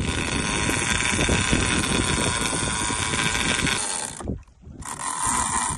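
Conventional fishing reel's spool spinning in free spool as line pays out to drop the bait down: a steady high mechanical buzz that stops sharply about four seconds in and starts again briefly near the end.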